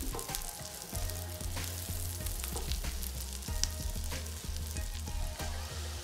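Sliced green chillies sizzling in foaming butter and oil in a nonstick frying pan while a silicone spatula stirs them, with many small pops and clicks. A low hum starts about a second in.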